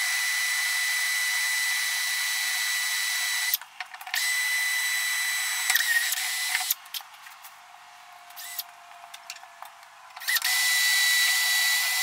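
Cordless drill running with a steady high whine as it bores holes through the skid steer's steel cab panel. It stops for a moment about three and a half seconds in, runs again, pauses for a few seconds with only small clicks after about seven seconds, and starts again near the end.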